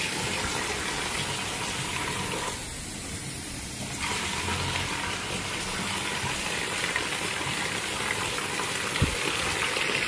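Water gushing and splashing onto a floor as it is thrown out of a plastic container to wash the floor. It eases off briefly a few seconds in, and there is a single thump near the end.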